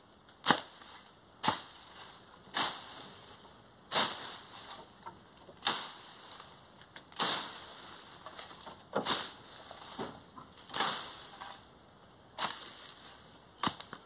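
Machete slashing through grass and brush: about ten sharp swishing strokes, one every second or so.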